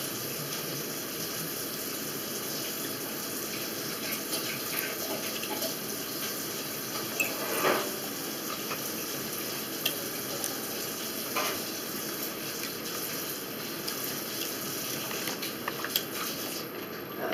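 Steady rushing hiss with a few short, soft clicks and smacks over it: chewing and mouth sounds of someone eating strawberries.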